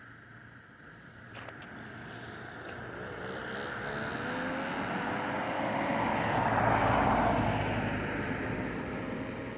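A vehicle driving past: its sound swells over several seconds, peaks about seven seconds in, then fades, with a faint whine that slowly falls in pitch as it goes by.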